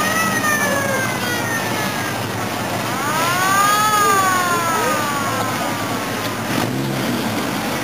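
A siren wailing twice, each time rising quickly and then falling away slowly, over the rumble of cars driving past.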